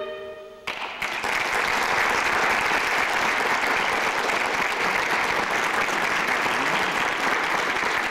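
The final chord of a clarinet ensemble rings away, and under a second in an audience bursts into steady applause.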